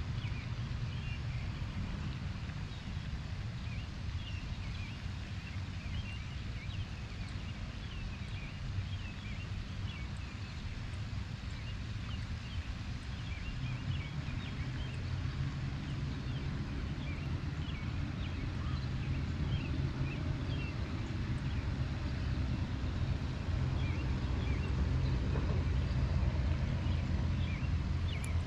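Outdoor ambience: a steady low rumble that grows a little louder toward the end, with many faint high chirps scattered through the first half.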